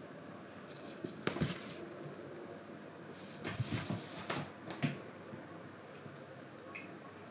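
A cat getting up off a shaggy rug and padding away across the rug and a wooden floor: a couple of soft scuffs about a second in, then a cluster of four or five rustling thumps from its paws between three and five seconds in.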